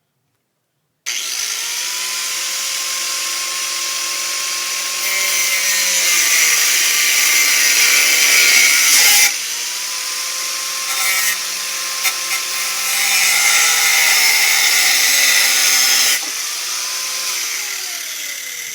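Drill Master 4½-inch angle grinder (10,000 RPM) starting up about a second in and cutting through steel pencil rod: a steady motor whine under a loud, hissing grind of disc on metal, in two long stretches with a brief break in the middle. Near the end the grinding stops and the whine falls in pitch as the disc spins down.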